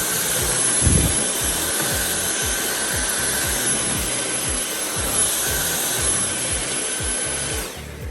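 Dyson V8 Animal cordless stick vacuum running on high suction while sucking up spilled cat litter sand: a steady loud rush of air with a thin high whine from its digital motor. It is switched off near the end, and the sound dies away quickly.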